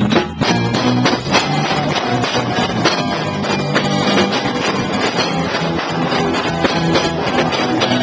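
A live band playing loudly, heard close to the drum kit: drums and cymbals being struck over guitar.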